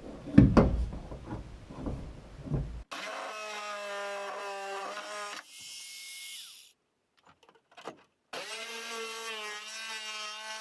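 Irregular knocks and handling thuds on wood for the first few seconds. A corded electric drill motor then whines steadily, breaks off, and starts up again with its pitch wavering slightly.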